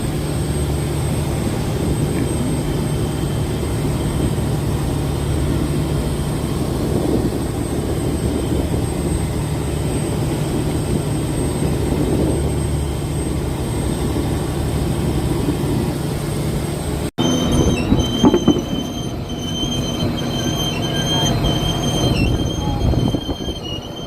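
Fishing boat engine running steadily with a low drone. About two-thirds of the way through it cuts to a different rumble with a high, wavering squeal and a few knocks.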